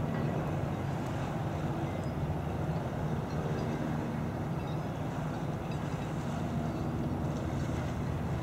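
Steady outdoor rumble: a low, even mechanical hum under a wind-like rush, with no distinct events.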